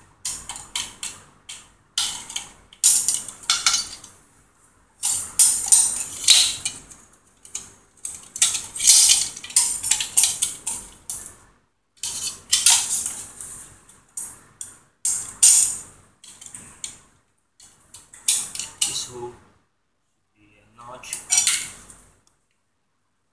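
Aluminium flat bars and steel bolts clinking and rattling as they are handled and bolted together into a swinging arm. The metallic clatter comes in irregular bursts with short pauses, and stops shortly before the end.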